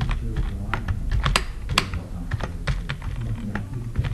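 Typing on a computer keyboard: an irregular run of key clicks, about four or five a second.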